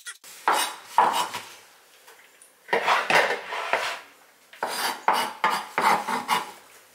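Chef's knife blade scraping and sweeping across a bamboo cutting board, gathering chopped spring onions, in three bunches of quick strokes.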